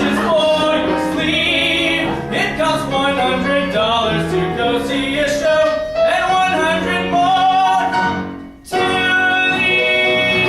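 A showtune-style song: a voice singing with vibrato over instrumental accompaniment. It breaks off briefly about eight seconds in, then held notes resume.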